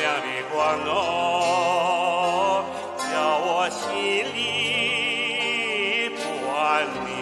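A Chinese folk song: a singer holding long notes with wide vibrato over a steady instrumental accompaniment.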